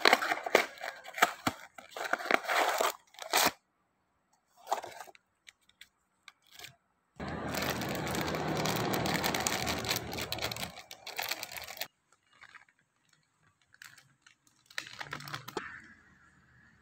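Crinkling and tearing of a plastic packet of pancake mix. This is followed by about five seconds of steady hissing, like the mix being poured into a bowl, then a few scattered light knocks.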